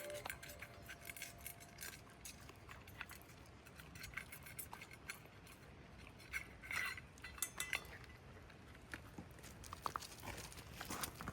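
Faint, scattered light clicks and clinks of small hard objects being handled, a little busier in the second half.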